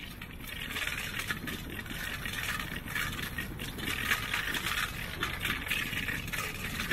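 Bicycle rattling steadily as it rides over a rough city street, over a low rumble of road and passing air.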